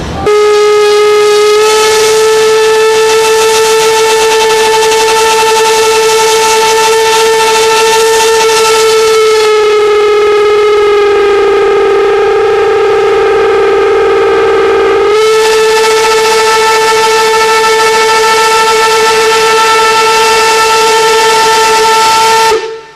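Steam whistle of the Deutsche Reichsbahn class 52.80 steam locomotive 52 8177-9 blown in one long continuous blast of about 22 seconds. The steady, shrill note sags lower for about five seconds in the middle, then returns to its first pitch and stops just before the end.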